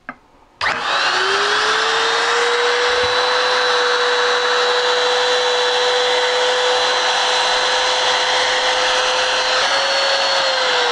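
FAVOURITE FR-900 900 W trim router's brushed motor switched on with no soft start, a hard kick-on, running free with no cutting load. Its whine climbs quickly to full speed about half a second in and holds steady, then begins to wind down near the end.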